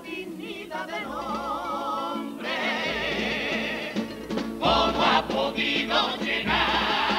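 Male voices of a Cádiz carnival comparsa singing a sustained, harmonised phrase with wide vibrato; more voices swell in about two and a half seconds in and it grows louder near the end.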